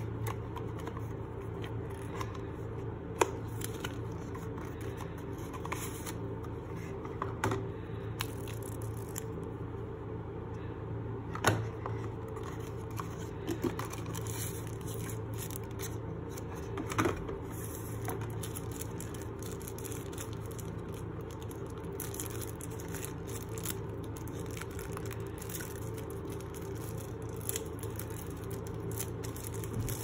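Cardboard watch-box parts and a plastic bag being handled: scattered taps, scrapes and crinkles, with a few sharper knocks, over a steady low hum.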